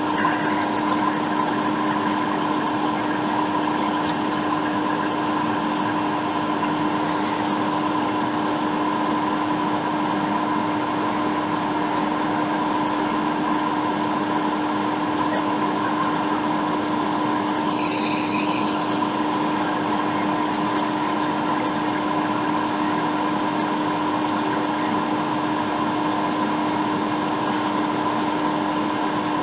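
Steady hum of a small electric motor on the bench, with a constant pitched drone that does not change. A brief faint higher chirp sounds about eighteen seconds in.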